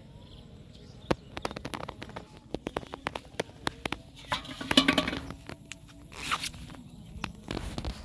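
Footsteps in grass and a run of light clicks and knocks as fishing gear is handled, with a louder, slightly ringing clank about five seconds in as an aluminium pot is set down on the ground.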